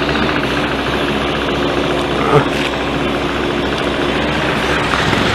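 Motorcycle engines idling steadily, the nearest a KTM RC 390's single-cylinder engine, with one brief knock a little over two seconds in.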